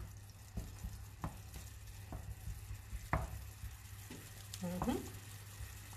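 A wooden spoon stirring diced artichoke stems and leeks simmering in a shallow pan of water, giving soft scrapes and taps against the pan every second or so over a faint sizzle. The stems are cooking down until the water evaporates. A steady low hum runs underneath.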